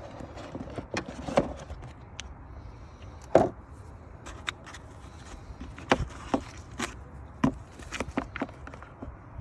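Irregular clicks and knocks of hands working on a BMW E92 headlight unit, handling its parts and fittings, with one sharper knock about a third of the way in.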